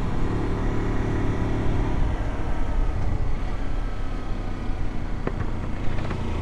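Motorcycle in motion on a winding downhill road: steady wind rush over the onboard microphone with the engine's low hum underneath, the engine tone dropping away about two seconds in.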